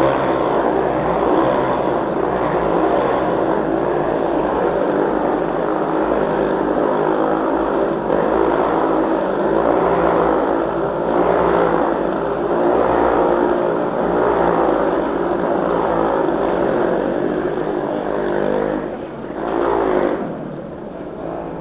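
Motorcycle engines running at high revs as the bikes circle inside a steel-mesh globe of death, a steady engine note whose pitch keeps wavering. Near the end the revs drop briefly and pick up again.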